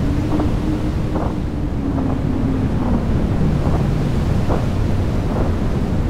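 Synthesized sandstorm wind from a shader's procedural audio: a dense, steady low wind noise with a faint howling tone that slowly rises and falls. Short faint whooshes come through about once a second.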